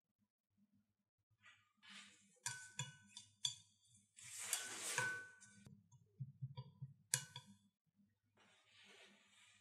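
A spoon clinking against a small dish: three quick clinks about two and a half seconds in and one more about seven seconds in, with a short hiss in between.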